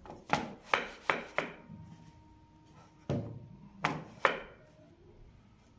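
Sharp wooden knocks as pieces of wood are struck together during assembly. There are four quick knocks in the first second and a half, then three more between about three and four and a half seconds in.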